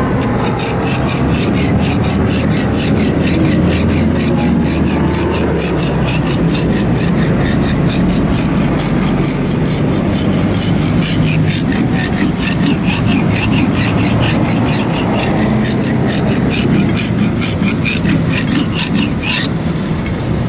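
A steel cleaver blade stroked back and forth over a coarse sharpening stone: a steady run of rasping grinding strokes, several a second, that stop shortly before the end.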